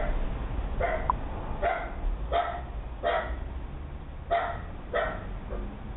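A dog barking repeatedly, about seven barks spaced under a second apart with a short pause midway, heard thinly through a video doorbell's microphone.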